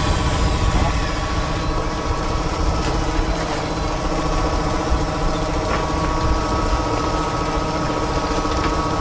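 Fishing boat's engine running steadily: a low rumble with steady hum tones over it.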